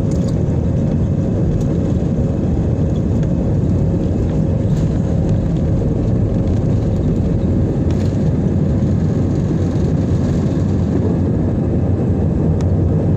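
Passenger airliner cabin noise: the engines and airflow make a steady, deep drone heard from inside the cabin.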